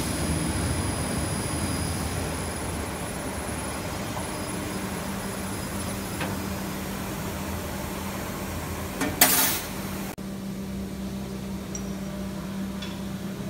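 1.5 kW CNC fiber laser cutting machine running: a steady machine noise with a high thin whine that fades out about halfway, then a short loud hiss about nine seconds in. After that the sound changes abruptly to quieter workshop ambience with a few faint clicks.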